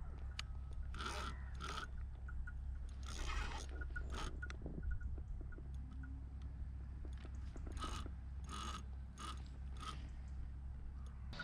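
Spinning reel being cranked to wind in line: a mechanical grinding from its gears with small repeated clicks and a few short scraping bursts, over a steady low rumble.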